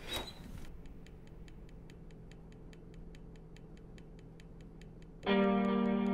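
Steady clock-like ticking, about four to five ticks a second, after a short swish at the start; a loud sustained musical chord enters near the end and holds.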